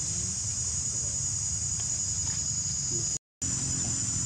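Steady, high-pitched drone of insects calling, over a low, even background rumble. The sound cuts out completely for a moment about three seconds in.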